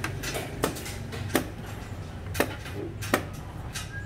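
Sharp clacks of xiangqi pieces being set down on a wooden board and of a chess clock being pressed, about five in all, roughly a second apart, in fast blitz play.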